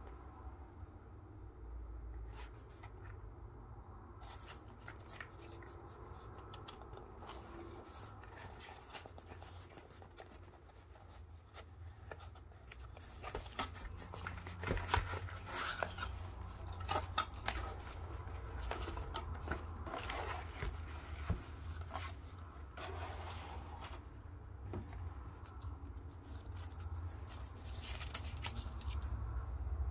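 A cardboard product box being handled and opened by hand, with scraping, tapping and rustling of cardboard, most busily in the middle stretch, over a steady low hum. Near the end a folded paper instruction leaflet rustles as it is unfolded.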